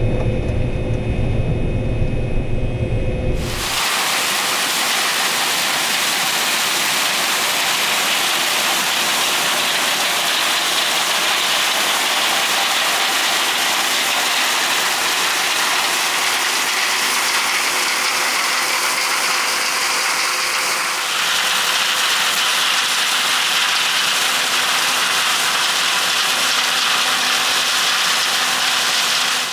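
A low engine drone from the combine harvester, cut off suddenly about four seconds in by a loud, steady hissing rush with no engine underneath. The hiss shifts a little about two-thirds of the way through.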